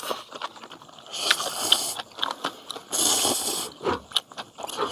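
Ramen noodles slurped from a bowl: two long hissing slurps, about a second in and again around three seconds in, with chewing and small clicks between them.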